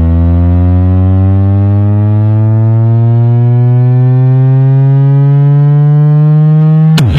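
Very loud bass tone from a trailer-mounted car sound system, rising slowly and steadily in pitch like a sweep, then cutting off suddenly near the end as louder music bursts in.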